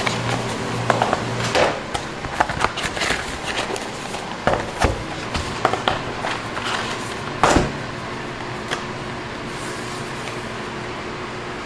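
Light knocks and clicks of things being handled, with one louder knock about seven and a half seconds in. After that only a steady hum remains.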